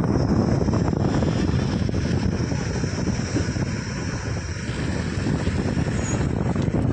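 Wind rushing over the microphone together with the road and engine noise of a car driving along, heard at its side window. The rush eases a little about halfway through.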